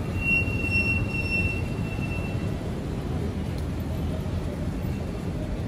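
Steady low rumble of city street traffic, with one high, steady squeal that starts just after the beginning and lasts about two seconds.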